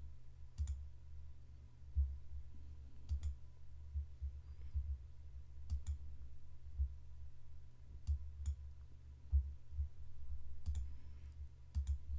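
Computer mouse clicks, single or in quick pairs about every two to three seconds, over a steady low hum.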